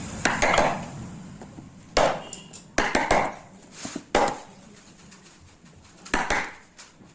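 Sharp knocks of a hand tool striking wood, about six blows at an irregular pace, each with a short ringing tail.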